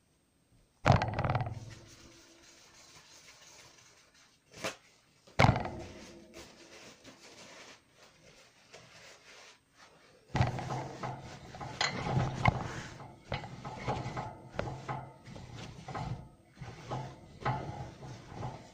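A cloth wiping and scrubbing the plastic base tray of a guinea pig cage, in fast rough rubbing strokes from about ten seconds in. Two sharp knocks come before it, about a second in and five seconds in.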